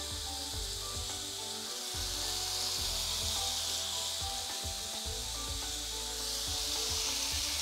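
Bacon and eggs sizzling on the hot plates of an electric grill/griddle, a steady hiss that swells about three seconds in and again near the end as raw bacon strips are laid on the grill plate.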